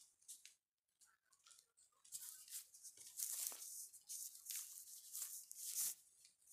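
Handling noise: irregular rustling and scraping, like fabric or fingers rubbing close to the phone's microphone, a few short ticks at first and then a busier stretch from about two seconds in until just before the end.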